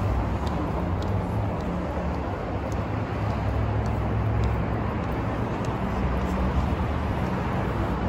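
City street traffic: a motor vehicle's engine running close by, a steady low hum over the wash of road noise.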